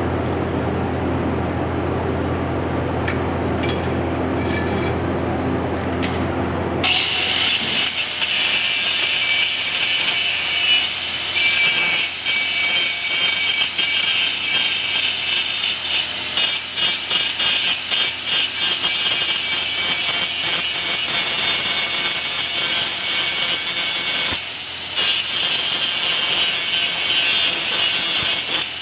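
A low steady hum, then about seven seconds in a sudden switch to a continuous, high-pitched sawing or grinding noise from a power tool cutting, flickering in level as it goes, with a brief dip near the end.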